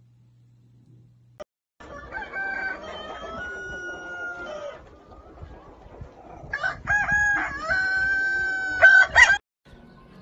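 Rooster crowing twice, each crow held for nearly three seconds, the second louder.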